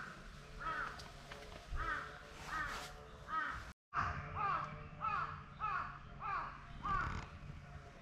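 Crows cawing over and over, one harsh call following another less than a second apart, with a very brief break in the sound a little before halfway.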